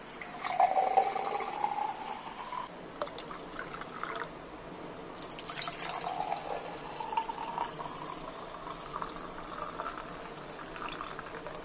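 Strained beetroot juice poured in a thin stream into a drinking glass, in two pours, a short one and then a longer one. The splash rises in pitch as the glass fills.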